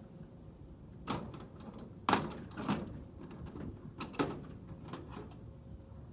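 Screwdriver working at a truck's brake master cylinder cover: four or so sharp metal knocks and clicks, the loudest about two seconds in, as the stuck cover is forced.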